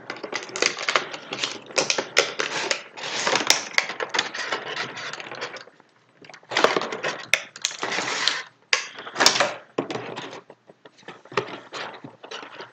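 Clear plastic blister packaging crinkling and crackling as it is handled and pieces of the toy are pulled out, in irregular bursts with sharp clicks and a brief pause about halfway.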